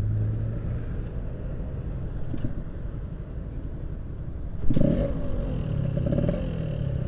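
Yamaha RX-King 135cc two-stroke single-cylinder motorcycle engine running on the move, with road noise. A louder rise in the engine comes about five seconds in.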